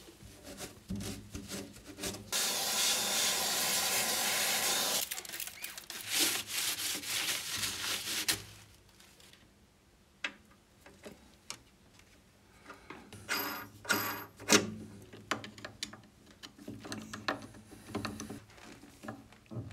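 Hands and tools at work in a machine's electrical cabinet while a power cord is fitted: a loud rubbing scrape lasting about three seconds, then scattered clicks, taps and handling noises, with a quiet pause in the middle.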